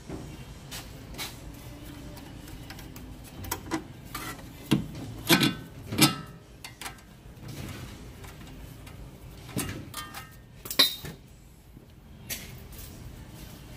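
Metal clinks and knocks of tools and steel suspension parts: several sharp strikes with a short ring, bunched about five seconds in and again near eleven seconds, as the outer tie rod end stud is fitted up into the steering knuckle.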